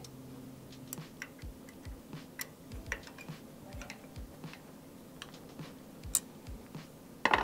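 Hex key turning in the socket-head screws that bolt a motor to its aluminium mount plate: scattered small metallic clicks and taps at an irregular pace, with a louder knock near the end.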